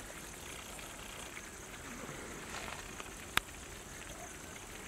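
Faint, steady bubbling hiss of chicken curry gravy simmering in a large cooking pot, with one sharp click about three and a half seconds in.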